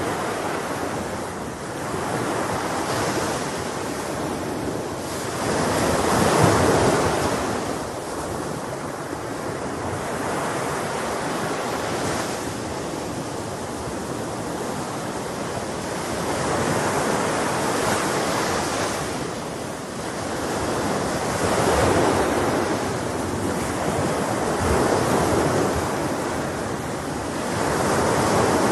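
Sea waves washing onto a shore, a steady rush that swells and falls back every few seconds, the biggest surge about six seconds in.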